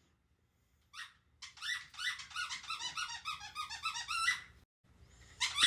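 Squeaky toy squeezed over and over in quick succession, several short high squeaks a second, after a single squeak about a second in; the squeaking stops briefly and starts again near the end.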